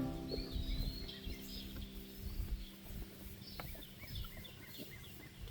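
Birds chirping in short scattered calls, one drawn-out call about half a second in, over low rumbling noise on the microphone.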